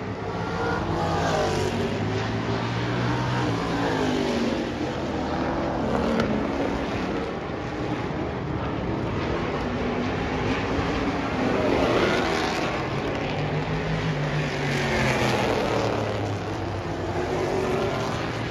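Race car engines running hard around an oval track during test-and-tune laps, the engine notes rising and falling again and again as the cars accelerate and pass.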